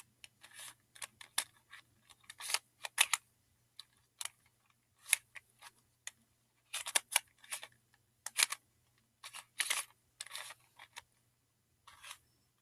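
Barrel cube, a cylinder-shaped 3x3 twisty puzzle, having its layers turned by hand during a solve. Irregular clicks and short scraping turns come singly and in quick runs, with brief pauses between.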